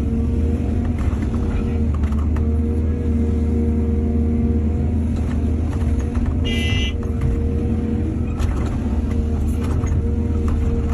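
Heavy diesel engine of an excavator running steadily under load, with scattered knocks and clatter. A brief high-pitched squeal comes about two-thirds of the way through.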